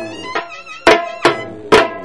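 Traditional folk music: a drum struck hard about twice a second under a sustained, pitched melodic line.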